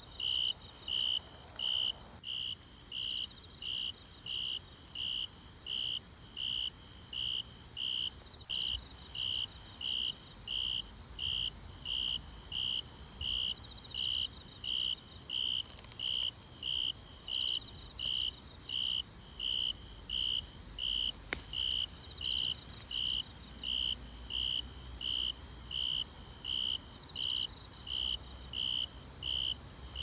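A cricket chirping at a steady, even rate, about three chirps every two seconds. Fainter, higher insect calls sound behind it, and there is one short click a little past the middle.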